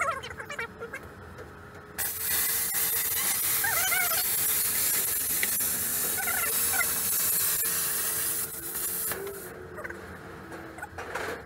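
Handheld plasma cutter cutting sheet steel along a straightedge: a loud, steady hiss of arc and air that starts abruptly about two seconds in and stops about six seconds later, leaving a softer hiss.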